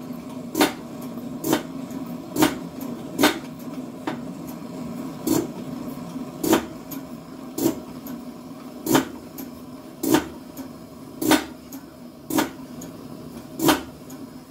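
Kerosene stove's preheat burner flame burning with a steady low rush, while a sharp knock repeats about once a second at slightly uneven spacing.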